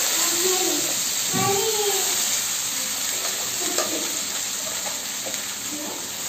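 Steady sizzling hiss from a pan on a gas stove as handfuls of washed fenugreek leaves are lifted from a steel colander and dropped into it, with a few soft clicks of leaves and steel.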